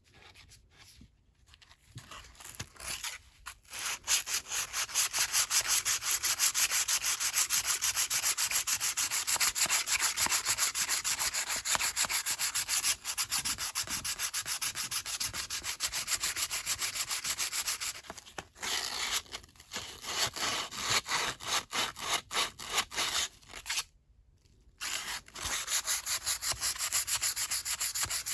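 Hand sanding or scrubbing of a metal Snap-on T handle, in fast, even back-and-forth strokes. It starts a couple of seconds in and pauses briefly twice in the latter part.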